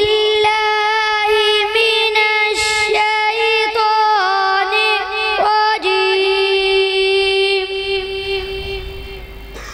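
A young boy's high voice reciting the Quran in melodic, chanted tilawat style, ornamented with quick turns. About halfway in he holds one long note, which fades out near the end.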